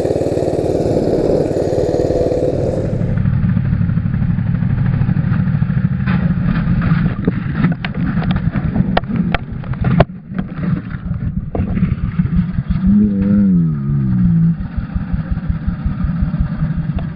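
Mini bike's small lawn-mower-type engine running at speed, then the bike goes down and slides on the asphalt: metal scraping and clattering on the road for a few seconds, ending in a sharp hit about ten seconds in. The engine keeps running after the crash, its pitch falling near the end.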